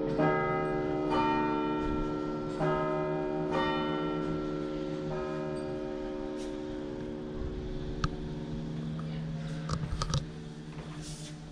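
Church bells ringing: about five strokes roughly a second apart, each leaving a long ringing tone, then the ringing slowly dies away. A few short knocks follow near the end.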